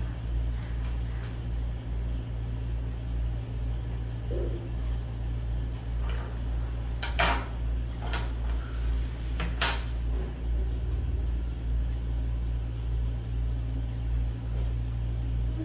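A parcel being handled and opened by hand: a few short knocks and rustles of packaging, most of them in the middle stretch, over a steady low hum.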